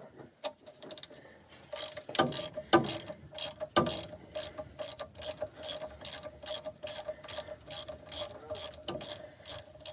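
Hand ratchet wrench clicking as it turns a fastener, with a few heavier knocks in the first few seconds and then an even run of clicks, about three a second.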